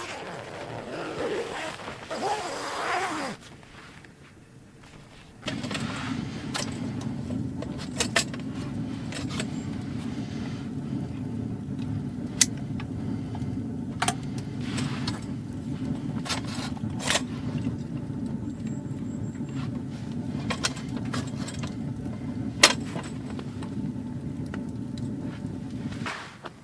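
Wood stove fire burning with a steady low rumble and scattered sharp crackling pops, starting abruptly about five seconds in and stopping just before the end. Before it comes a few seconds of rustling handling noise.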